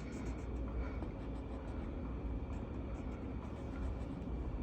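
Colouring strokes scratching lightly on paper, short and rapid, over a steady low background hum.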